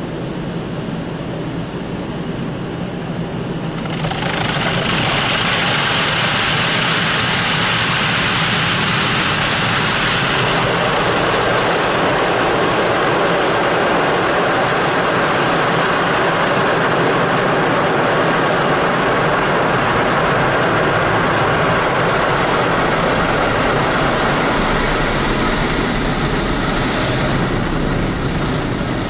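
Automatic car wash machine working over a car: a low hum, then about four seconds in a loud, steady rushing of spray or air comes up and holds, its hiss dropping off near the end.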